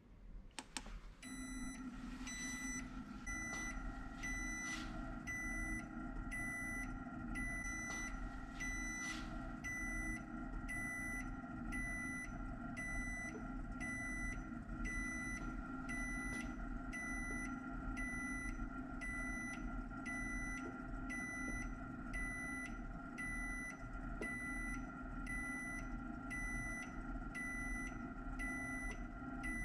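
Universal tensile testing machine's crosshead drive running steadily with a hum and whine, slowly pulling an aluminium test specimen in tension. A short electronic beep repeats about once a second throughout.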